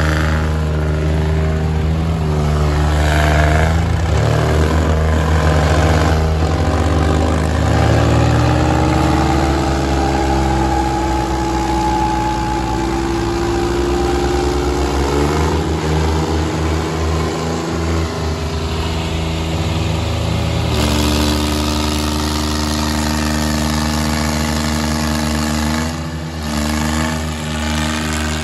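Two tractors' three-cylinder diesel engines, a New Holland 3630 and a John Deere 5050 D, running hard under full load as they pull against each other in a tug of war. Their pitch slides up and down as they are throttled, and the sound changes abruptly about three quarters of the way through.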